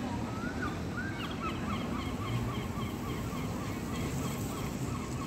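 A gull calling: a rising first note, then a long run of quick, short, honking calls, about four or five a second, that stops near the end.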